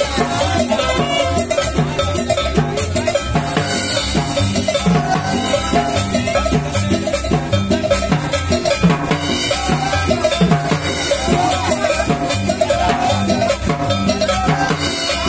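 Upbeat cumbia played live by a small street band: a saxophone melody over a drum kit's steady dance beat.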